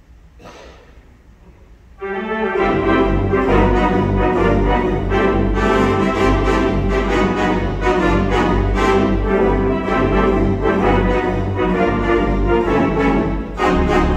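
Mighty Wurlitzer theatre pipe organ launching into a lively big-band-style tune about two seconds in, with full sustained chords over a steady rhythmic beat.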